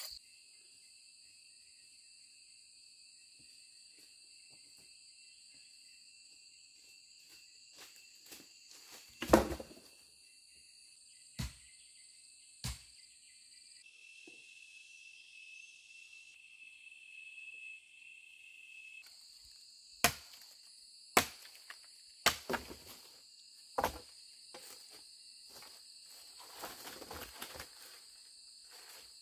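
Insects chirring steadily in a high, even drone, with several sharp knocks scattered through. The loudest is a heavy thud about a third of the way in, and a stretch of rustling noise comes near the end.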